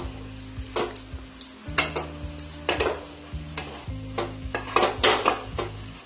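Wooden spatula stirring and scraping shredded banana stem and potato around a non-stick kadai, a scrape every half second to a second, with a light sizzle of the vegetables frying in oil.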